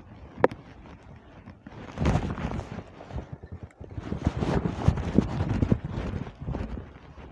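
Irregular footsteps and phone handling noise on dry, cracked mud, with a sharp knock about half a second in and busier scuffing and thumping in the second half, mixed with wind buffeting the microphone.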